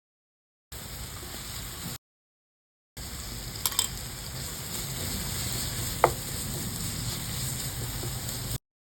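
Chicken frying in a pan with a steady sizzle, heard in two stretches with a second of silence between them. There is a light clatter about three and a half seconds in, and a sharp knock of a utensil against the pan about six seconds in.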